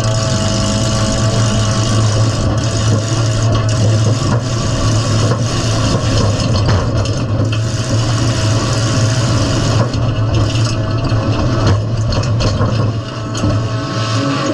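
Midsize demolition derby car's engine running loud and steady, heard from inside the stripped cabin, with heavy rattling and scraping of the body and several sharp knocks.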